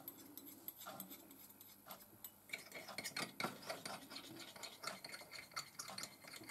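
Faint clinking and scraping as a metal spoon and then a thin stirrer work in a small metal cup, mixing varnish with thinner. The stirring quickens into a run of rapid small taps from about halfway in.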